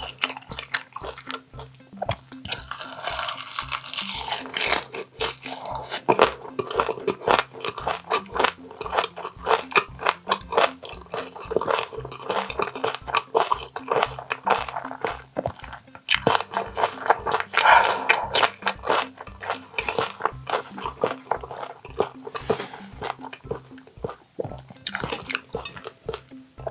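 Close-miked chewing and biting of boiled baby octopus (jjukkumi) full of roe: wet, crunchy mouth sounds coming one after another. Under it runs background music with a steady beat.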